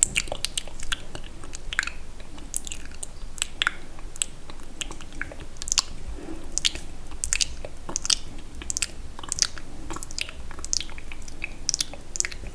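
Close-miked wet, sticky mouth sounds: irregular lip and tongue clicks and smacks, a few each second.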